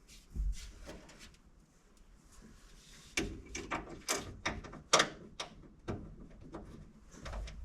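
A dozen or so sharp, irregular metal clicks and knocks over about three seconds in the middle, from hand work on bolts and hardware while fitting a seatbelt in an old truck.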